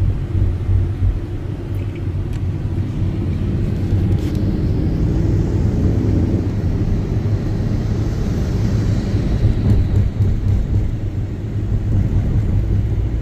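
Steady low rumble of road and engine noise heard from inside a moving vehicle's cabin.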